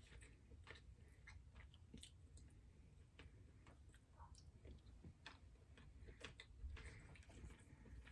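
Faint eating sounds: quiet chewing with irregular small clicks and mouth smacks.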